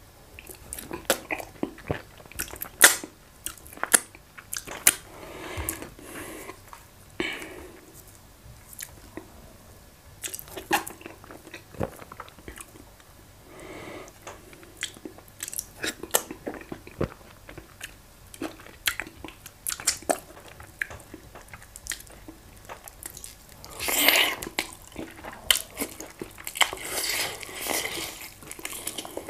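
Close-miked mukbang eating sounds: a man chewing fufu and efo riro, with many short wet smacks and clicks of the mouth. Near the end comes a louder, longer stretch as he bites and chews goat meat.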